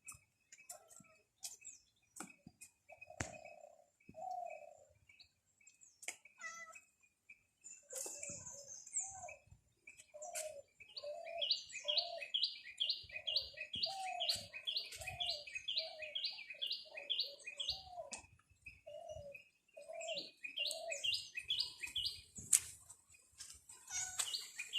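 Birds calling: stretches of quick high chirps, about two a second, over shorter lower calls that recur throughout.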